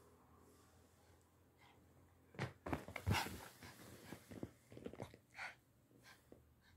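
A Pomeranian close to the microphone, with a cluster of sharp knocks and rubs from about two and a half to five and a half seconds in, the loudest around three seconds.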